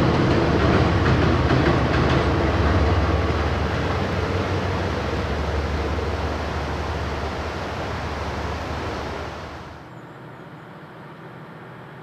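JR Freight DF200 diesel locomotive hauling a container freight train across a steel girder bridge: a low diesel drone under the rumble of the wagons, slowly fading as the train moves away. About ten seconds in it cuts off abruptly to a much quieter steady background.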